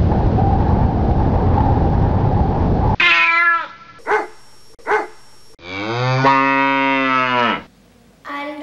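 Sound effects: a strong wind gusting for about three seconds and cutting off, then a short animal call, two quick cat meows, and one long cow moo lasting about two seconds.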